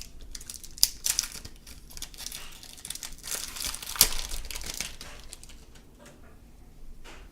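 Crinkling and rustling as baseball cards and their packaging are handled, with sharp crackles about one and four seconds in, dying away over the last two seconds.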